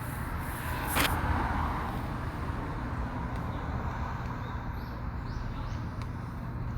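Steady outdoor background with a low rumble, like distant traffic, and a brief rustle about a second in.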